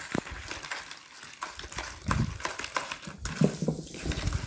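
A hand squishing and mixing a soft butter-and-yogurt mixture in a plastic bowl: irregular wet smacks and clicks, with a few dull knocks from about two seconds in.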